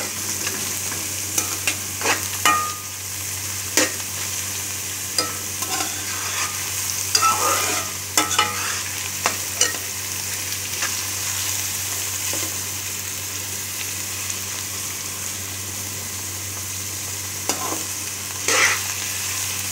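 Finely diced carrots and onion sizzling steadily as they fry in a little oil in a steel pan. A metal turner stirs them, scraping and clinking against the pan now and then.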